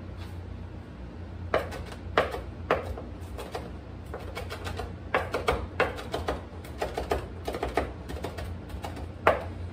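Chef's knife chopping fresh herbs on a plastic cutting board: sharp taps of the blade on the board in uneven runs, starting about a second and a half in and quickening to several a second.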